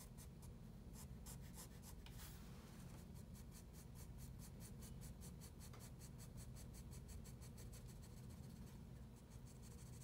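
Graphite pencil scratching faintly on drawing paper in quick, repeated short strokes, hatching shading texture into a drawing.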